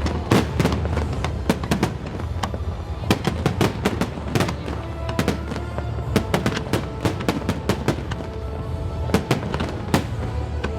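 Fireworks bursting overhead in a rapid, irregular string of sharp bangs, with a low rumble and music playing underneath.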